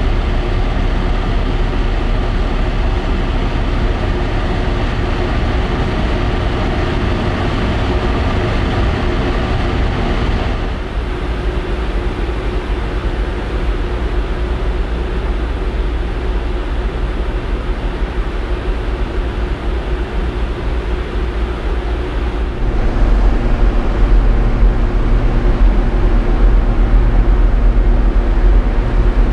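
Steady running noise of a ferry under way, heard on the open deck: a low engine and machinery hum with a rush of wind and sea. The sound changes abruptly twice, and in the last few seconds it grows louder with a deeper rumble.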